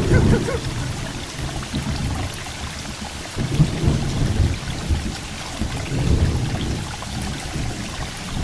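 Steady rain falling, with thunder rumbling several times: a swell near the start, another about three and a half seconds in and another about six seconds in.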